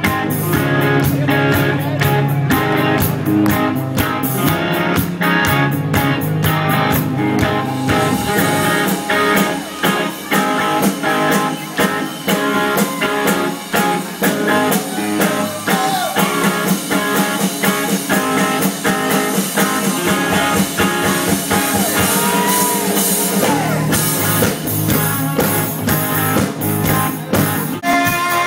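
Live rock band playing loud through the stage PA, with guitars and drums. The deep bass drops away for a long stretch in the middle and comes back near the end.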